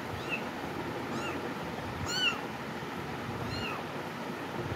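A kitten mewing: four short, high mews about a second apart, over a steady hiss.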